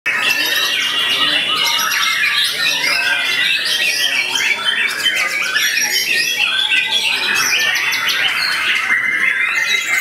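Young wild-caught white-rumped shama (murai batu) singing loudly in an unbroken run of quick, varied phrases and trills, overlapping with other caged songbirds singing around it.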